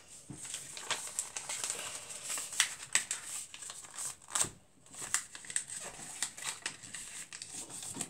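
A paper airplane being folded and creased by hand: irregular rustling and crinkling of paper, with a few sharp taps and scrapes as the fold is pressed flat against the desk.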